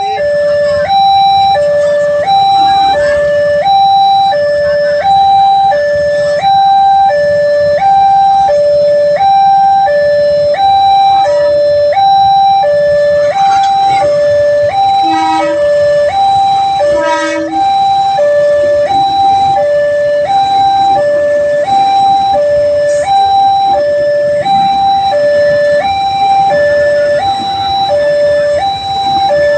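Railway level-crossing warning alarm sounding loudly: an electronic two-tone siren switching steadily between a high and a low note, about one high-low cycle a second, warning of an approaching train.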